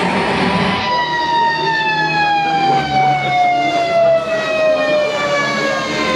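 Nitro-powered radio-controlled model helicopter: a whining engine and rotor tone that falls steadily in pitch from about a second in until near the end.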